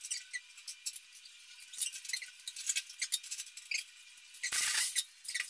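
Faint, scattered clicks and light squeaks of tools being handled and worked against a wall, with a short burst of rustling noise near the end.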